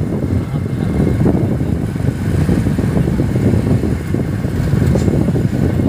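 Motorcycle riding along, heard from the rider's seat as a steady low rumble of engine and passing air.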